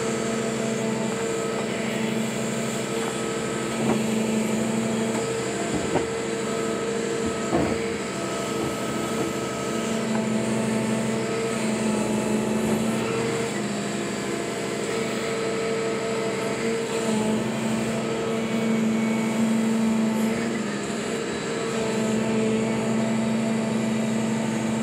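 Excavator's diesel engine and hydraulics running steadily, the hum swelling and easing as the bucket works, while it places boulders at a culvert. A few sharp knocks in the first eight seconds or so, stone striking stone or the steel bucket.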